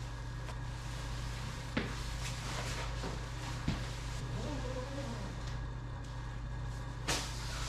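Steady low hum with light handling noise and three faint knocks, about two, four and seven seconds in, as a motorcycle rain suit is pulled on over boots.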